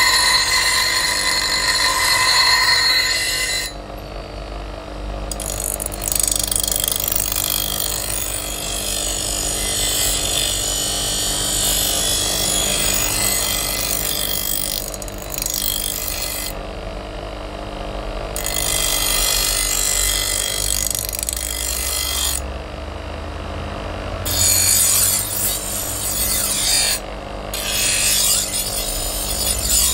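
Electric bench grinder running while a steel meat cleaver blade is pressed against its abrasive stone wheel, grinding the blade in passes. A steady motor hum sits under a loud grinding hiss that drops away for a second or two several times as the blade is lifted off the wheel, then comes back.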